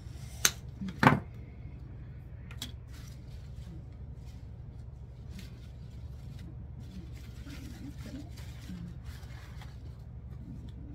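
Wire cutters snipping through the stem of a large artificial dahlia: two sharp snips about half a second apart, the second louder. Faint handling of the flower follows over a low steady hum.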